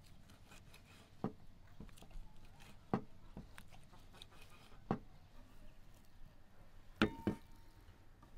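Kitchen knife cutting cooked beef tongue on a wooden chopping block: single knocks of the blade meeting the wood every second or two. Near the end comes a louder double knock with a brief ring.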